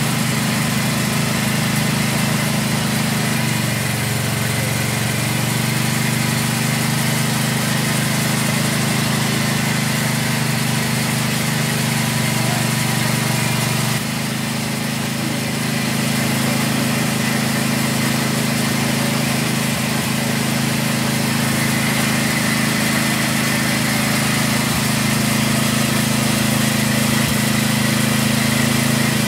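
Motor of a spice and peanut grinding mill running steadily, a continuous low mechanical hum whose pitch shifts slightly a few seconds in and again about halfway through.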